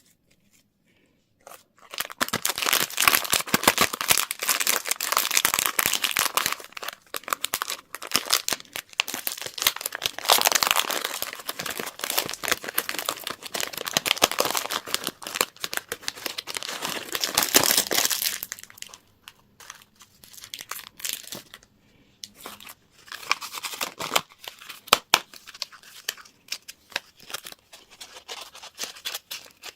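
Candy wrappers being torn open and crinkled by hand: a long stretch of dense crackling, then sparser crinkles with a louder burst of handling later on.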